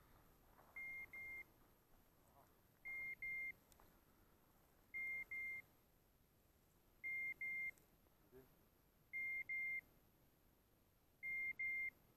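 Hunting-dog beeper collar giving a double beep, two short high tones, repeating about every two seconds as the pointing dog works the field.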